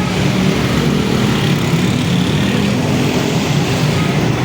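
A vehicle engine running steadily on the move, a continuous drone with road noise.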